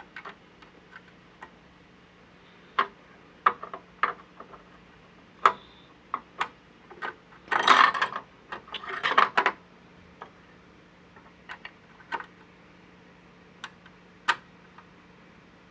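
Scattered sharp clicks and taps of small metal parts being handled on a domestic sewing machine during needle installation, with a denser stretch of rattling and clinking about eight seconds in. A faint steady hum lies underneath.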